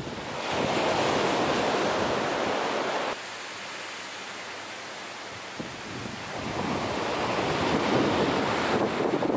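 Surf washing onto a beach, with strong wind buffeting the microphone. The sound drops abruptly about three seconds in, then swells back up over the following seconds.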